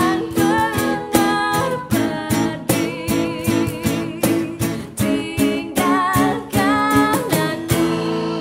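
Acoustic pop song: a woman singing with vibrato over a strummed acoustic guitar and hand-played cajon beats. Near the end the strokes stop and a final chord rings on.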